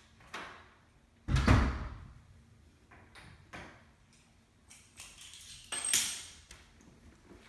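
Interior wooden door shutting with a heavy thud about a second and a half in, followed by a few lighter knocks and a second sharp knock near the end.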